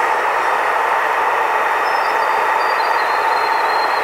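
Steady cabin noise of a jet airliner in descent, the hum of the engines and the rush of air past the fuselage, with a faint high whine coming in about halfway.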